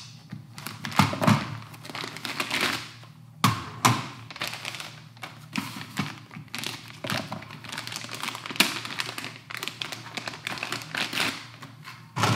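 Irregular taps and knocks with plastic crinkling: Magpul PMAG polymer rifle magazines being unpacked from their plastic bags and handled on a wooden table.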